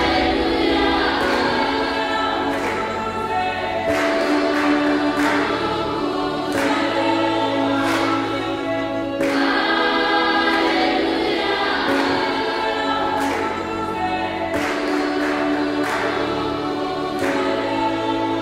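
Background music with a choir singing sustained chords over a slow, regular beat.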